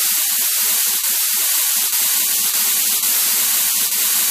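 Loud, steady hiss of steam from a steam locomotive, cutting in and stopping abruptly.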